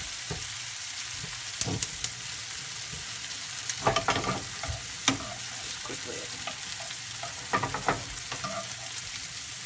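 Tortilla frying in hot oil in a skillet: a steady sizzle as the oil softens it. Metal tongs click against the tortilla and pan a few times as it is turned.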